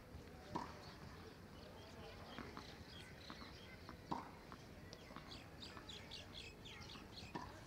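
Small birds chirping faintly and repeatedly, with a few soft knocks of a tennis ball on the hard court, the clearest about four seconds in.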